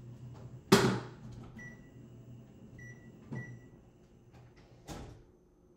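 Microwave oven running with a steady low hum while it melts butter, with a loud clunk about a second in, three short high beeps, and a few knocks. The hum stops shortly before the end.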